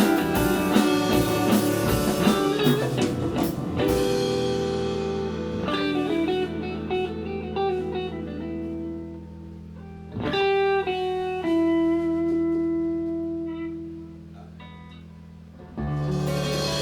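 Live band playing a slow blues-rock number led by electric guitar. The full band thins out after a few seconds to long held notes and sparse guitar phrases, then comes back in loudly near the end.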